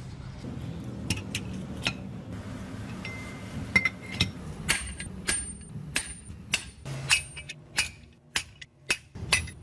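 Hammer blows on steel at the anvil, forging a blade, about two a second, each with a short bright metallic ring. They start about halfway through, after a few scattered clicks over a steady low hum.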